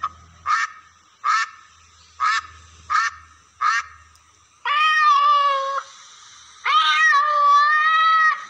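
A duck quacking about six times in short, separate calls. About five seconds in, a cat gives two long meows, the second one longer.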